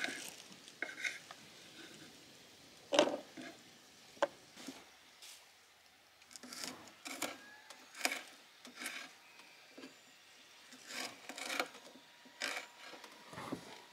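A spoon stirring and scraping in a cooking pot: a run of short scrapes and light knocks about every half second, after a sharp knock about three seconds in.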